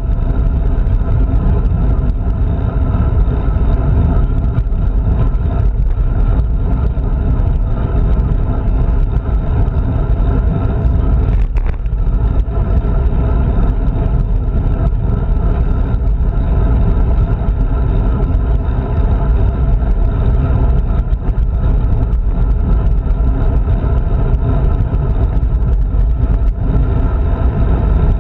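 Steady wind buffeting and road rumble on a handlebar-mounted action camera's microphone while riding a road bike, loud and heaviest in the low end.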